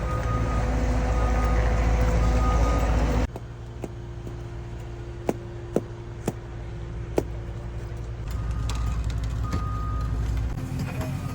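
Heavy diesel equipment running with a backup alarm beeping about once a second. About a third of the way in the sound drops abruptly to a quieter engine hum with four sharp clicks. Near the end the engine grows louder again with a few more alarm beeps.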